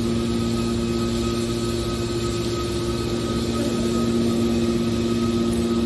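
Hydraulic car body baler running, a steady machine hum that holds one pitch.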